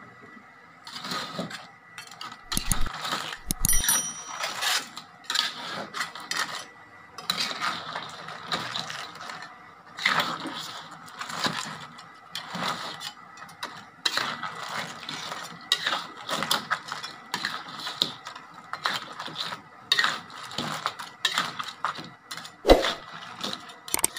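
Metal spatula scraping and knocking against a metal wok as crabs in thick sauce are stirred: an irregular run of scrapes and clacks, several a second.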